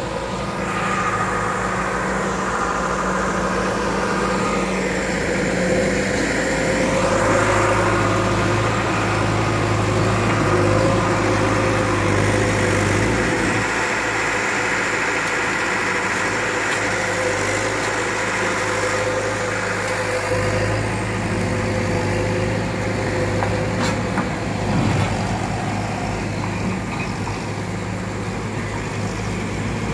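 John Deere 310E backhoe loader's diesel engine running steadily, its note strengthening and easing as the machine works.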